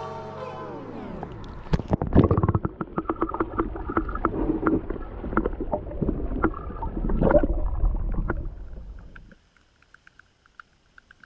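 Water sloshing and gurgling around an action camera dipped underwater, with muffled bubbling, many sharp clicks and a low rumble. It drops away sharply about nine seconds in, leaving only faint ticks.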